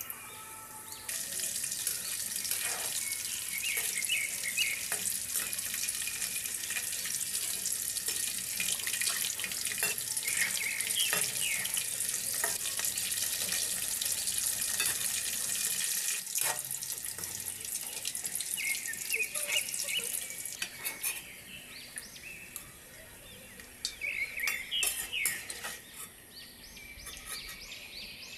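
Batter-coated chicken strips deep-frying in hot oil in a metal wok: a dense, steady sizzle that eases off about two-thirds of the way through. Metal clicks and scrapes sound against the wok as the pieces are stirred and lifted out with a slotted skimmer.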